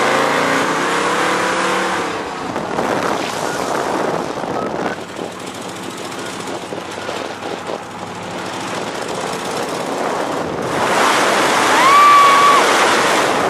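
1971 Ford Mustang Mach 1 Cobra Jet V8 engine running loud as the car is driven, its note rising under acceleration in the first couple of seconds. Near the end it gets louder and echoes as the car passes under a bridge, with a brief high-pitched tone.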